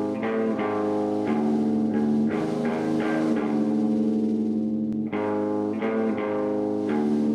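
Live band music led by an electric guitar played through effects, ringing chords that change every half second to a second, with a short break about five seconds in.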